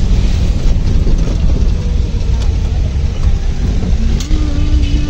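Busy street traffic heard from a moving vehicle: a steady deep rumble of engines and road noise from passing motorcycles and rickshaws. Near the end a single held tone sounds for about a second.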